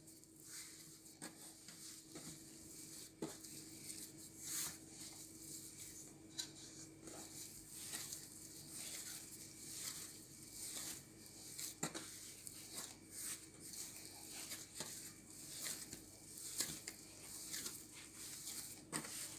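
Hands kneading a soft, buttery dough on a floured worktop: faint, irregular pats and squishes as the dough is pressed and folded.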